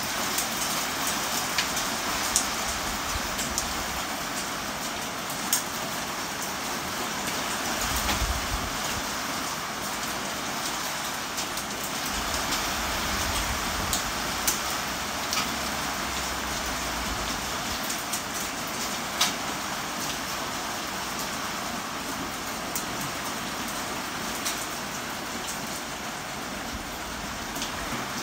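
Steady heavy rain falling, a constant hiss with scattered sharp drips and splats. Patches of low rumble come and go underneath.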